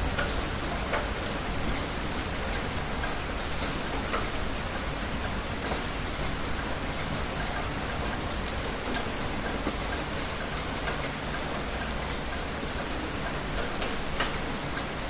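Heavy rain falling steadily, with louder single drops tapping sharply here and there.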